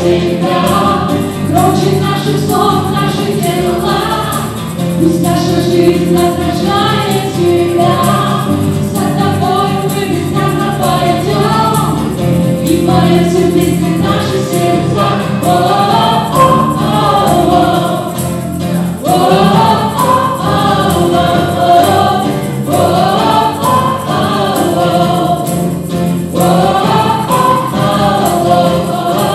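Live worship band performing a Russian-language worship song: several men and women singing together on microphones over acoustic guitar, electric bass and keyboard.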